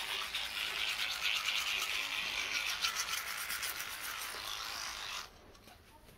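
Colgate vibrating toothbrush scrubbing teeth: a wet, rapid brushing hiss of quick strokes that stops suddenly about five seconds in.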